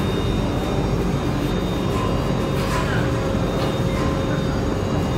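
Olive mill machinery running steadily at the olive receiving hopper: a constant loud mechanical noise with a low hum and a thin high whine.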